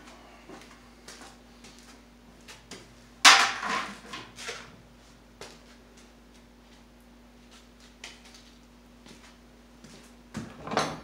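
Scattered knocks and clatter of things being handled, with a loud clatter about three seconds in and another near the end, over a faint steady hum.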